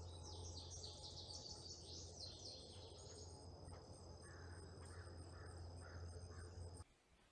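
Summer evening insect chorus, a steady high trilling of crickets, with quick bird chirps in the first three seconds and a run of short lower calls later, over a low steady hum. It cuts off suddenly near the end.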